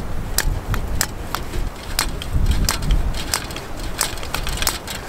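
Hand pump on an MSR WhisperLite liquid-fuel bottle being stroked to pressurise it: a series of sharp clicks, about two a second. Wind buffets the microphone underneath.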